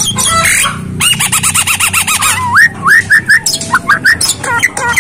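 A caged Javan myna calling: a fast warbling trill about a second in, then a run of about five short rising whistles followed by quick chirps.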